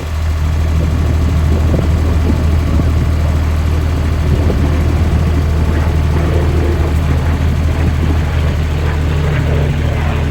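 Aircraft engine droning steadily, a deep, even hum.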